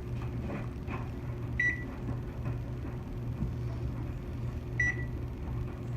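Microwave oven running with a steady low hum, and two short high-pitched beeps about three seconds apart.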